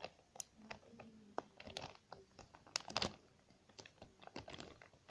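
Slime being poked and squished by hand, giving faint, irregular little clicks, pops and crackles.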